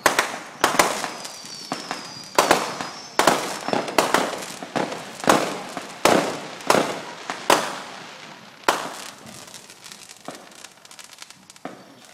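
Aerial fireworks going off in a rapid series of sharp bangs, about one every 0.7 seconds, each trailing off, with faint high whistles in the first couple of seconds. After about nine seconds the bangs give way to fainter crackling.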